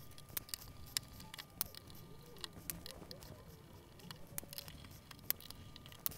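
Faint, scattered small clicks and taps of a screwdriver and loose screws being worked out of a circuit board by hand.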